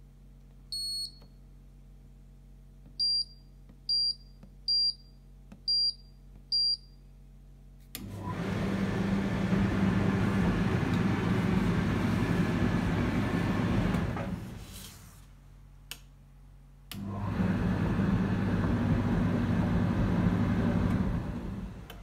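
Hoover Dynamic Next tumble dryer's control panel beeping as buttons are pressed for service mode: one longer beep, then five short high beeps about a second apart. About eight seconds in, the dryer's motor starts and runs steadily for about six seconds, stops, a single click follows, and it runs again for about five seconds.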